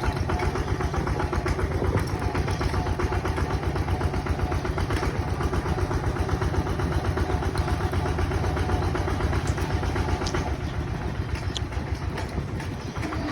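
Bulldozer's diesel engine running steadily with a rapid low throb, easing off slightly near the end.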